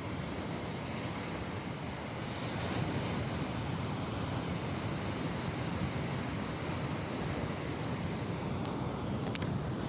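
Steady beach ambience: the wash of surf with wind buffeting the microphone, and a brief faint tick near the end.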